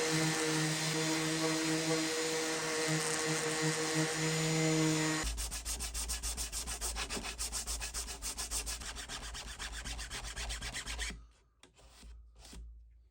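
A power tool's motor runs with a steady whine for about five seconds, then cuts out. Fast, rhythmic rubbing on painted wood follows at several strokes a second and stops about eleven seconds in.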